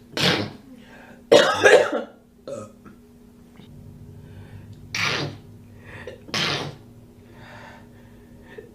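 A woman sneezing four times, each sneeze a short sharp burst, spaced out over several seconds; the second sneeze is the loudest.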